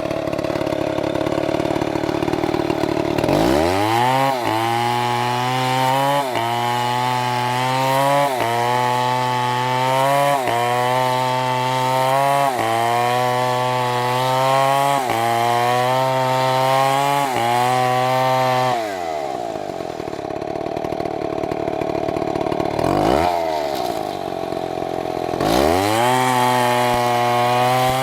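STIHL two-stroke chainsaw cutting wood. It idles, then revs up to full throttle after a few seconds, its pitch sagging briefly and recovering about every two seconds under load. Past the middle it drops back to idle, gets one quick throttle blip, and revs high again near the end.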